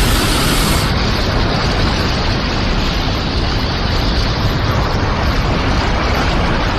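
Anime battle sound effect: a loud, steady noisy rumble like a sustained explosion or energy blast, the highest hiss dropping away about a second in.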